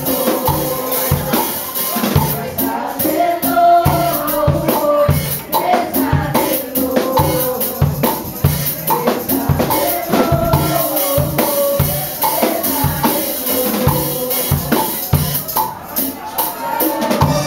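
Live church praise music: a drum kit keeps a steady, driving beat of kick and snare under the melody of an upbeat worship song.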